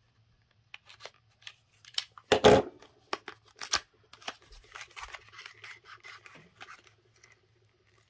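Box cutter slitting the seal of a small paperboard box, with sharp clicks and cuts, the loudest about two and a half seconds in. Then a stretch of scratchy rubbing as the paperboard is worked open by hand.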